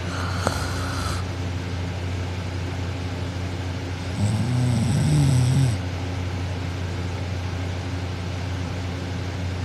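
A girl asleep on her back snoring: one snore about four seconds in, lasting about a second and a half, over a steady low hum.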